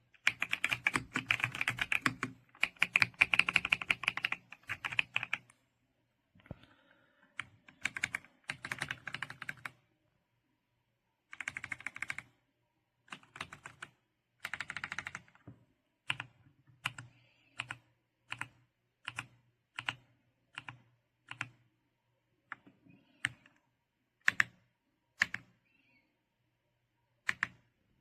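Typing on a mechanical keyboard: fast runs of keystrokes in bursts for the first fifteen seconds or so, then single keys pressed one at a time, about one every 0.7 seconds.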